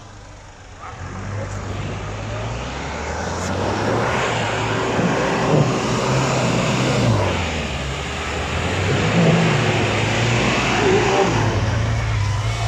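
Jeep Cherokee XJ's engine revving up and down under load as it crawls up a snowy, muddy slope, with its tyres churning through the mud and snow. The noise builds about two seconds in and the engine pitch rises and falls several times.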